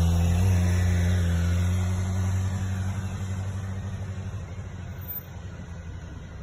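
BMW S 1000 R inline-four motorcycle engine pulling away at steady low revs, its note fading as the bike rides off.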